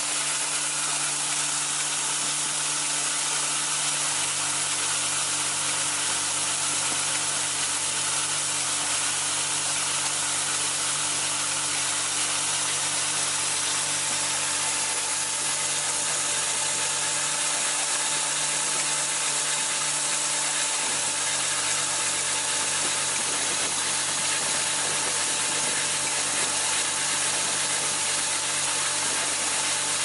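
Cable clip and nail assembly machine running steadily, a dense continuous mechanical rattle and hiss with a steady hum underneath.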